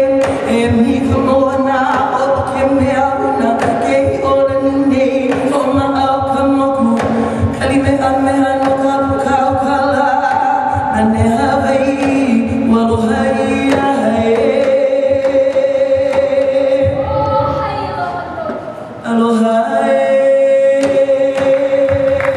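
Traditional Hawaiian chanting for hula kahiko, long held and wavering vocal notes, with regular beats on an ipu gourd drum beneath. Near the end the chant fades briefly, then comes back in strongly.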